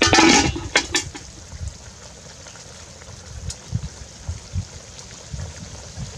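Aluminium pot lid and metal spoon clattering against a metal bowl at the start: a loud scraping clatter followed by two sharp clinks. After that only a low uneven rumble with faint hiss.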